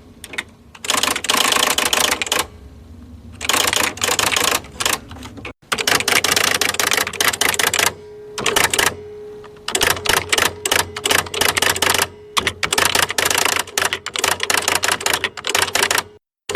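Electric typewriter being typed on: rapid runs of key strikes lasting a second or two each, broken by short pauses, over a steady hum.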